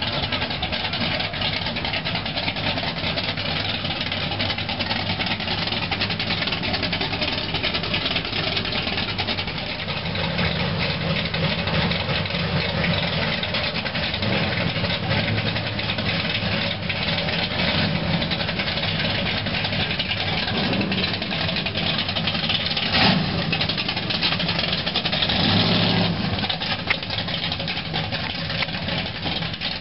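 Classic car engines idling and rolling slowly past, a red 1957 Chevrolet Bel Air among them, with a steady low engine hum. There is a single sharp knock about three-quarters through.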